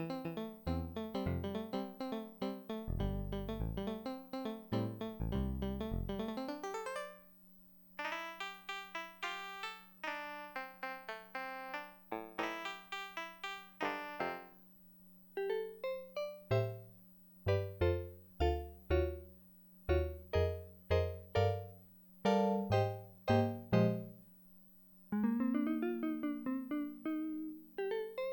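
Kawai FS640 arranger keyboard playing short test passages in piano-like voices, with chords over bass notes. First comes a busy run ending in a quick climb, then a chordal phrase, then clipped, detached chords; near the end a different voice enters with notes that slide upward. A steady low hum runs underneath.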